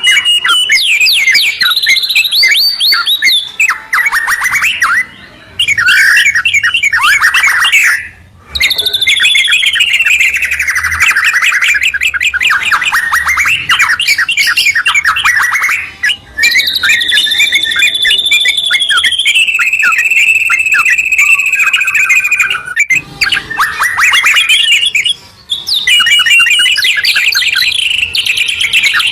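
White-rumped shama and yellow-vented bulbul singing loudly in a duet: rapid strings of notes and gliding whistles, with a long, slowly falling whistle in the middle and a few short pauses.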